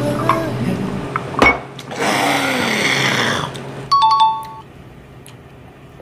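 Background music that stops about a second and a half in, followed by a noisy stretch of about a second and a half, then a short two-note ding-dong chime like a doorbell about four seconds in, after which it goes much quieter.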